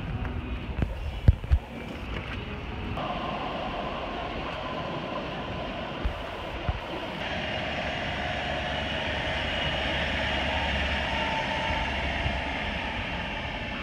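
City tram running on its rails: a steady rumble with faint whining tones above it, shifting about three seconds in and growing a little brighter later.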